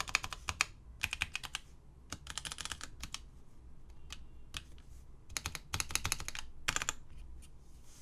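Typing on a Toshiba J-3100 GT keyboard with Alps SKFM switches: quick runs of crisp key clicks broken by short pauses, with a few scattered single keystrokes in the middle.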